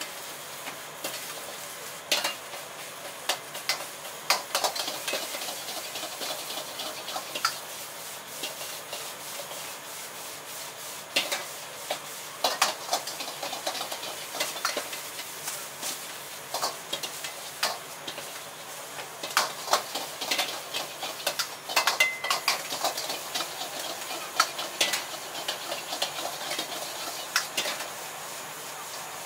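Metal ladle scraping and clanking against a wok during stir-frying over a gas burner, with frequent sharp clinks over a steady hiss of burner and sizzling food.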